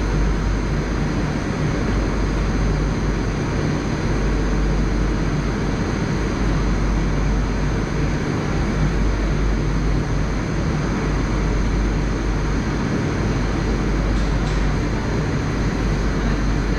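Steady low hum and hiss of an 81-760/761 Oka metro train standing at a station platform, heard from inside the car.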